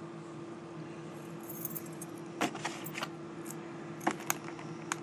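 Earbud packaging being opened by hand: scattered plastic clicks and short crinkles, about half a dozen, over a steady low hum.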